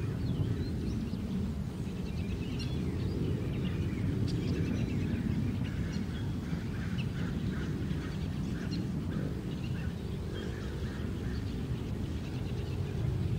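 Wind noise rumbling steadily on the microphone, with birds calling in the background: a run of short, repeated calls through the middle and later part.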